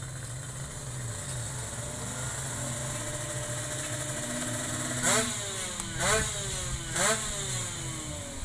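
Two-stroke drag bike engine revved three times, about a second apart, near the end. Each rev rises sharply and falls away, over a steady low engine hum.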